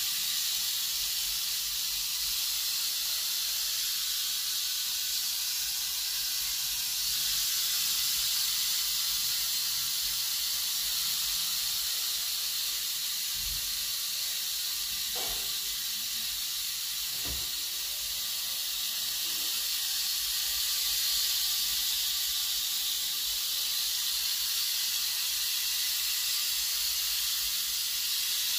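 Western diamondback rattlesnake shaking its tail rattle: a continuous, high-pitched dry buzz, the snake's defensive warning.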